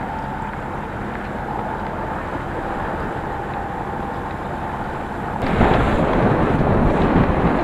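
Wind buffeting the microphone over a steady rumble and rushing water aboard a small sailboat under way. About five seconds in, the wind and water noise get louder and harsher.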